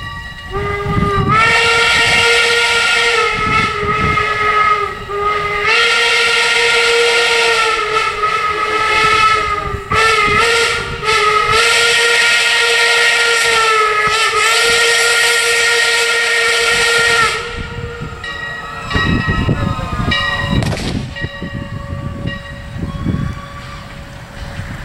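Whistle of the replica 4-4-0 steam locomotive Leviathan 63, blown in one long blast of about sixteen seconds. Its pitch wavers slightly and it breaks briefly a few times before cutting off. Fainter rumbling noise follows.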